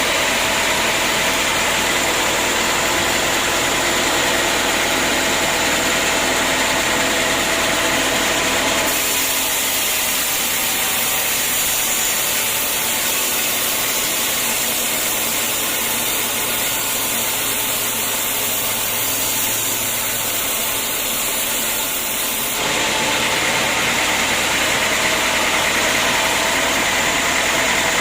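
Sawmill machinery running with a steady, loud mechanical noise. The sound changes abruptly about a third of the way in, losing its low rumble and gaining a higher hiss, then switches back near the end.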